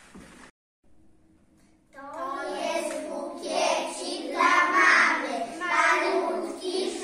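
A group of preschool children singing together, starting about two seconds in.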